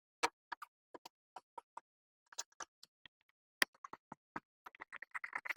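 A series of short, irregular clicks and ticks as the two door armrest-pocket screws are driven back in with a screwdriver, coming a few a second and bunching close together near the end.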